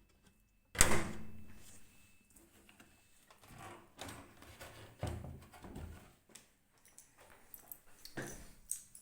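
Automatic washing machine's spin basket knocking and rattling: a sharp bang about a second in, then a run of irregular thuds and rattles, and another knock near the end.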